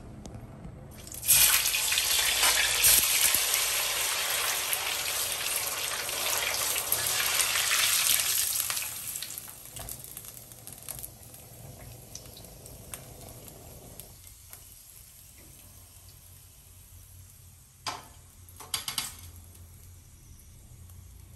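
Coated ice cream balls dropped into hot sunflower oil: a loud sizzle starts suddenly about a second in, holds for several seconds and dies down as the balls are lifted out on a slotted spoon. A couple of short knocks come near the end.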